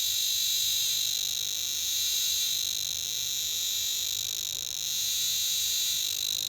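Homemade radiation detector's speaker giving a steady, high-pitched, fast pulsing buzz, its clicks run together as the reed-switch sensing tube is exposed to americium-241.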